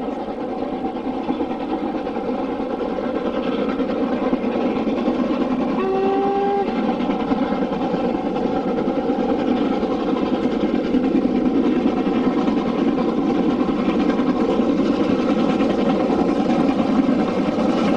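LMS Black 5 4-6-0 steam locomotive working hard, a steady rumbling exhaust that grows slightly louder. About six seconds in there is one short whistle blast.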